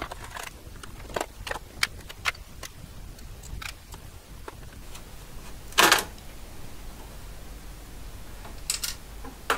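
Small clicks and taps of a screwdriver and screws coming out of a printed circuit board, then a louder clack about six seconds in as the board is worked loose from its edge connectors.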